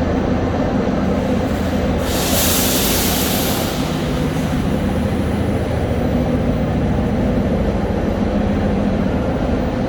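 Metro train running underway, a steady loud rumble of wheels and motors heard from inside the car, with a short hiss about two seconds in.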